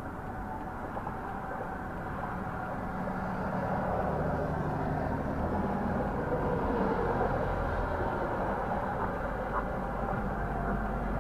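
Steady road-traffic noise: a low vehicle rumble and tyre hiss that swell a little in the middle.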